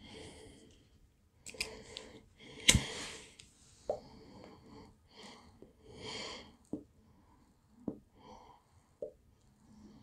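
A man puffing on a tobacco pipe while lighting it with a lift-arm butane pipe lighter: a run of short, faint breathy draws about a second apart, with small lip pops between them. A single sharp click of the lighter comes a little under three seconds in.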